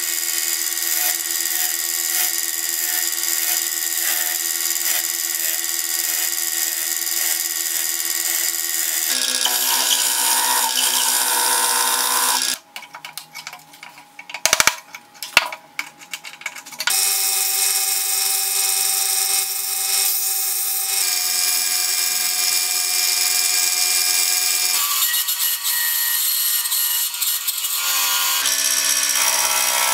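Woodshop power tools running in a string of short takes, steady machine tones changing from take to take. Partway through comes a quieter stretch of hand work on a small wooden disc, with a few sharp knocks. Near the end a bandsaw cuts through a turned wooden piece.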